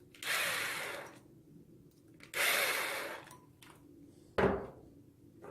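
Hardware and tools being handled during the bumper assembly: two short scraping rubs, each about a second long, then a single sharp knock near the end.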